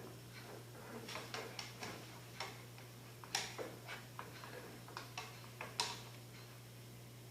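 Light, irregular clicks and taps of a kitchen utensil against a pan, a dozen or so, over a steady low hum.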